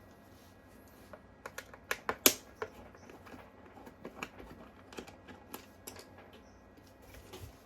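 Irregular small clicks and taps from screws being taken out of an e-bike battery pack's case with a screwdriver. The loudest click comes about two seconds in.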